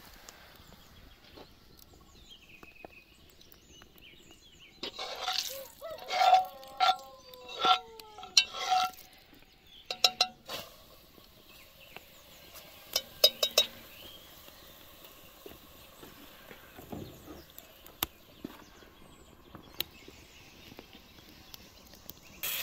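Metal spoon clinking and knocking against a cast-iron pot: a cluster of ringing knocks about five to nine seconds in, then a few sharper clinks around ten and thirteen seconds.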